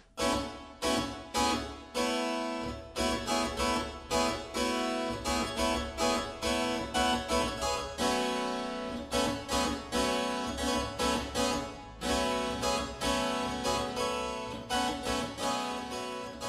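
A John Challis harpsichord being played: a steady run of plucked chords and notes, each with a sharp attack that quickly dies away, about two to three a second.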